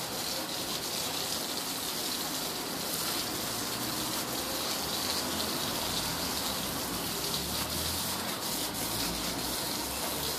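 Garden hose running without a break, its water gushing and splashing onto a tiled floor in a steady stream.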